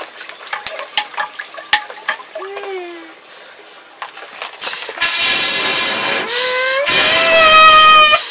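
Light clicks and knocks, then a loud hissing rush starts about five seconds in. About a second later a young child begins crying over it, in long wails that rise in pitch.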